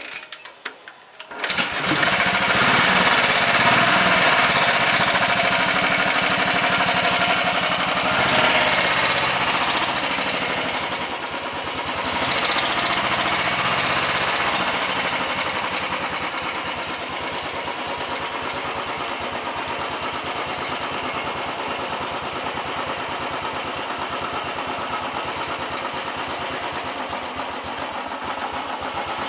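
A Royal Enfield Thunderbird 350's single-cylinder engine starts about a second and a half in, running on its newly fitted carburetor. It is revved up a few times and then settles to a steady idle for the second half.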